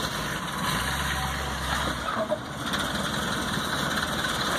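Early Ford Bronco's engine idling at low revs while the truck sits on the rocks, with one short knock about halfway through.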